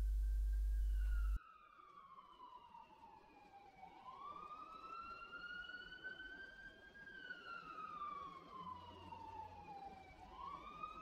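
A low steady hum that cuts off abruptly about a second and a half in, followed by an emergency vehicle siren in a slow wail, its pitch falling, rising, falling and rising again.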